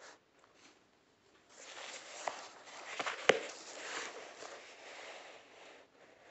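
Paper rustling and handling noise as a textbook is held, moved and touched by hand. There is a sharp click about three seconds in.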